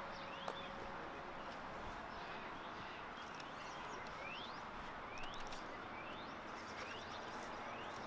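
Faint outdoor background hiss with a bird repeating short rising chirps, roughly one a second.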